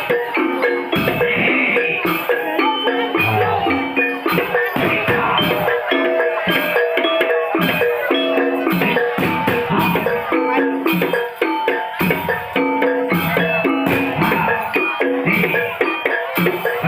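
Javanese gamelan music accompanying a barongan performance: struck metal keys and gongs play a steady, repeating melodic pattern over drums.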